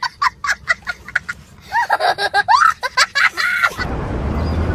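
A young child laughing hard, at first in quick high-pitched bursts of about six a second, then in longer peals that swing up and down in pitch. The laughter cuts off suddenly near the end and a steady outdoor background hiss takes over.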